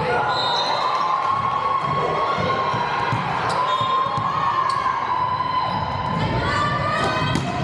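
Many girls' voices calling and cheering over one another during a volleyball rally, with a few sharp smacks of the ball being hit.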